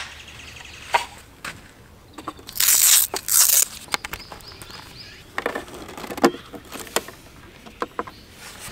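Handling of camping gear outdoors: scattered light clicks and knocks as a folding wooden stool, a solar panel's carry bag and a portable power station's cable are set up. Two short, loud rasps about three seconds in are the loudest sounds.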